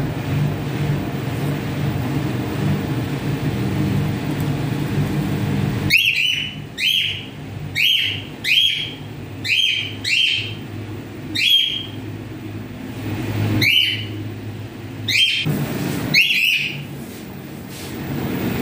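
A cockatiel calling: a string of short, sharp chirps, about one a second, starting about six seconds in. Before the calls, only a steady low hum.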